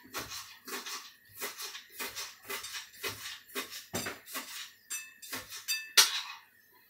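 Kitchen knife chopping green herbs in quick, even strokes, about three a second. A few ringing clinks come a little after five seconds, and a single loud clatter follows about six seconds in.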